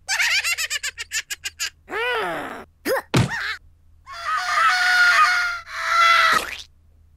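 Cartoon character voice effects, high and squeaky: a quick chattering run, a falling whimper and a short yelp, then two long held screams.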